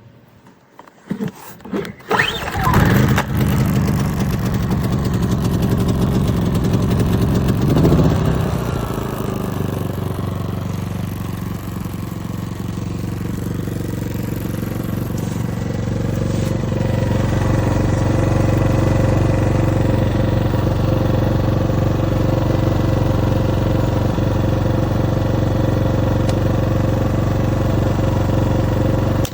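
ERAYAK 2400W portable inverter generator being pull-started: a couple of quick cord pulls, then the small engine catches about two seconds in and runs. It surges around eight seconds, settles to a lower speed, then speeds up again after about sixteen seconds and runs steadily.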